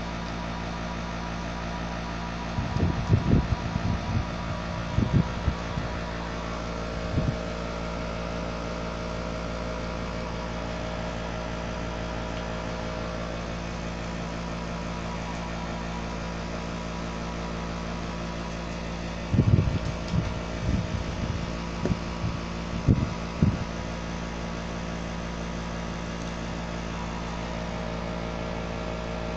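A steady hum made of many fixed tones, broken twice by clusters of short, low bumps and knocks from the phone and table being handled: first from about three to seven seconds in, then around twenty to twenty-three seconds in.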